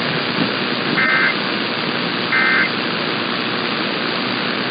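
Emergency Alert System end-of-message data bursts: two short two-tone digital chirps about a second and a half apart, the tail of a three-burst end-of-message code that closes the alert. Steady radio static hiss runs beneath them.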